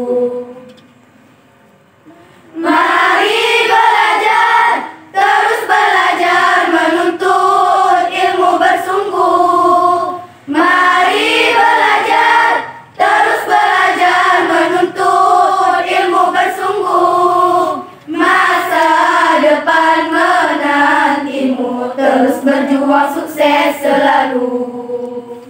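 A group of voices singing an Indonesian-language school anthem in unison. The song comes in long phrases with held notes, starting about two and a half seconds in, with short breaks for breath between phrases.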